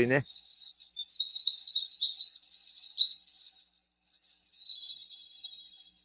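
Recording of small songbirds chirping and twittering, played back on a USD-Color portable audio player. A dense run of quick, high chirps lasts about three and a half seconds, breaks off briefly, then thinner, quieter chirps follow.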